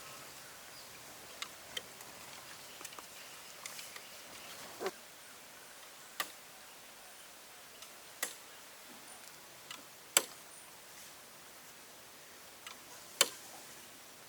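A few isolated sharp clicks and taps, irregularly spaced a second or more apart, over a faint steady hiss.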